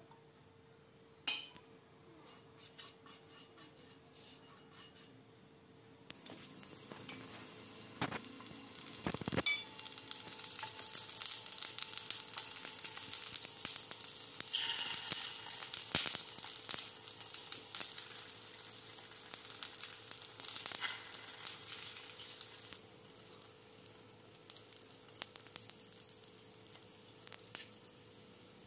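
Hot oil sizzling in a non-stick frying pan as onion rings and beaten egg fry in it, with a few clicks against the pan. The sizzling starts about six seconds in and eases off near the end.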